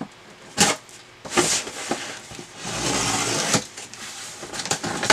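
A cardboard shipping box being opened by hand, its packing tape slit and pulled: a sharp knock, a short scrape, then a longer rasp of tape and cardboard near the middle.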